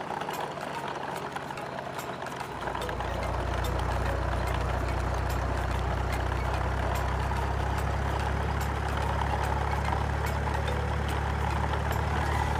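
Steady low engine hum, like a truck idling, that comes in suddenly about two and a half seconds in and then holds even, with faint light clicks over it.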